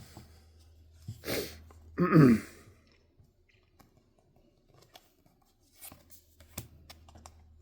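A man's sharp breath followed by a loud, short voiced outburst falling in pitch, about two seconds in. After it come faint scattered clicks of trading cards being handled.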